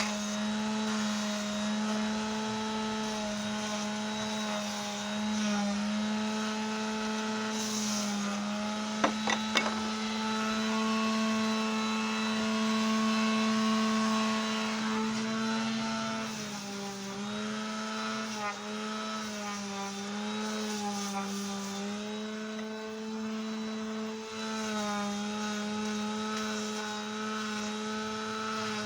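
Electric power sander motor running steadily with a hum, its pitch dipping slightly at times as the piece is pressed to it while smoothing the wood. A few quick knocks come about nine seconds in.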